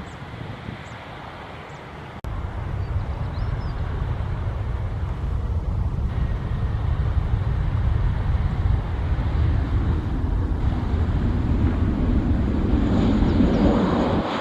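Jet airliner rumble mixed with wind buffeting the microphone. It jumps in abruptly about two seconds in and grows louder toward the end.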